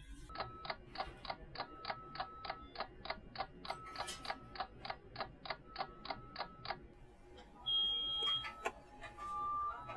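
A clock ticking steadily, about four ticks a second, for about seven seconds. Then a short high beep from the Q-ing Oven commercial microwave marks the end of its timed cycle.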